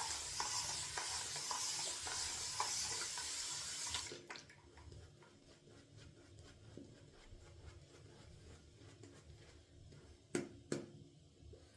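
A tap running for about four seconds, then shut off. After it, faint rubbing of a shaving brush working lather, and two sharp knocks near the end.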